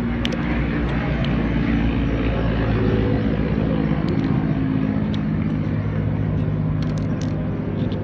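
A steady motor drone with a low hum runs throughout, and a few light metallic clicks of small watch parts being handled in a plastic tub, the clearest cluster about seven seconds in.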